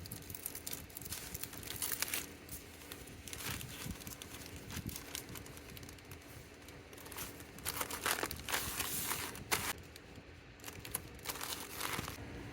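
Packaging being crinkled and handled while orders are packed by hand, in irregular rustling spurts that are busiest about two seconds in and again in the last few seconds.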